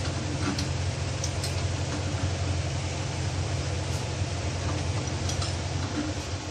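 A steady low machine hum, with a few faint metallic clicks from the steering rack assembly being worked in a bench vise.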